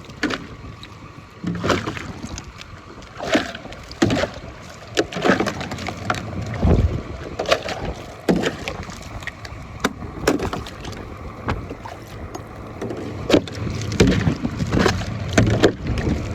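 Ice and slushy water being cleared out of a livestock water fountain by hand: irregular knocks and splashes.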